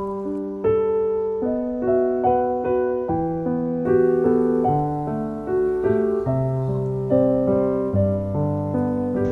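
Background piano music: a slow, gentle melody of single notes over a lower line, each note struck and fading.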